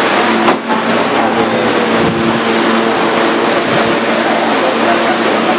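Kawasaki R-143 subway car running, a loud steady wheel-and-rail noise with the tones of its Bombardier MITRAC traction motors and bearings over it. A short click comes about half a second in.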